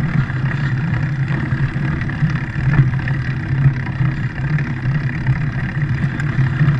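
Engine of a small vehicle running steadily with a low, slightly pulsing hum as it rides over sand.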